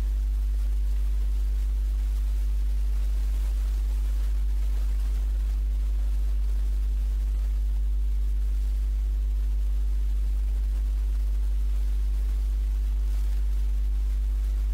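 Steady low electrical mains hum with a series of higher hum tones above it and a faint hiss, unchanging throughout.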